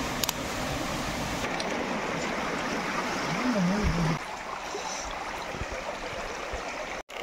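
Shallow stream water running over rocks: a steady rushing of water.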